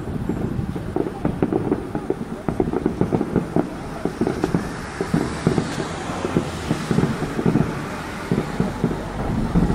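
A rapid barrage of fireworks bursting a kilometre or two away: a dense run of muffled booms and pops, several a second. Wind rumbles on the microphone near the end.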